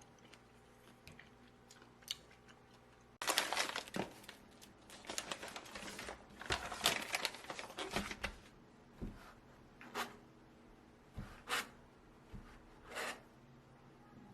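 Food packaging being torn open and crinkled: a long stretch of dense rustling and tearing starts about three seconds in, followed by four shorter crinkles.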